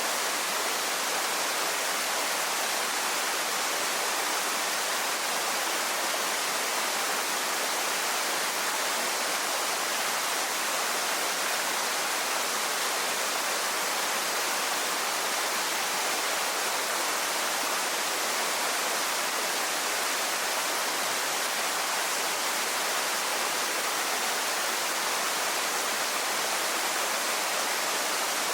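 Waterfall pouring steadily: a constant, even rush of falling water, heavy in the upper range.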